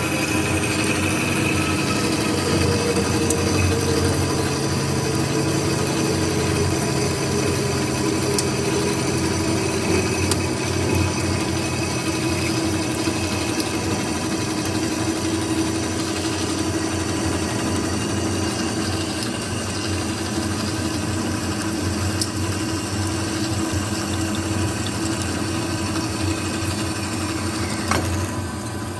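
Amada H250SAII horizontal band saw running, its new blade cutting through a piece of metal: a steady machine hum with several held tones. About a second before the end there is a click and the sound eases off.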